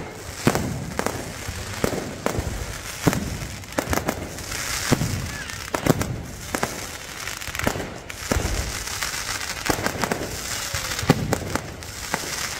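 Fireworks display: aerial shells going off in a dense, irregular string of bangs, with crackling between them.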